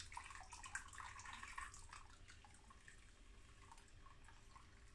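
Faint trickling and dripping as hot wort drains from a brew-in-a-bag grain bag into the full pot of wort after sparging. It is busier for about the first two seconds, then thins to scattered drips.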